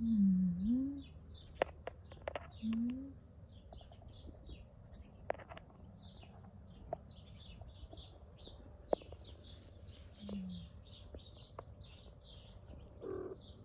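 Small birds chirping, many short high notes throughout, with a few low wavering calls near the start, about three seconds in and about ten seconds in, and scattered sharp clicks.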